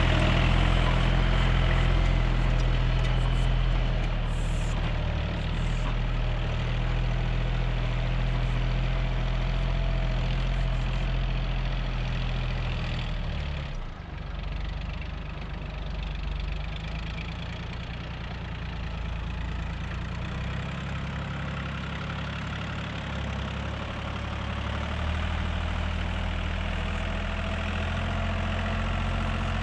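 Farm tractor's diesel engine running steadily as it pulls a laser land leveler. It grows fainter as the tractor moves away across the field, then a little louder again near the end.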